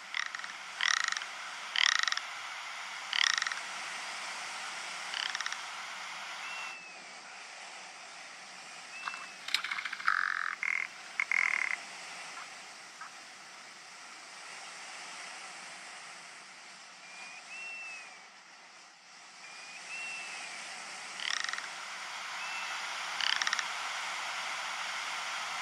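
Ptarmigan giving short calls over a steady hiss: several spaced about a second apart near the start, a cluster about ten seconds in, and two more near the end. Between them come a few faint, short arched chirps.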